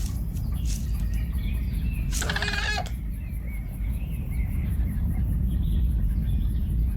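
Deep steady rumble of an incoming meteor in an animated film's sound design, with one short pitched animal call about two seconds in and faint bird chirps.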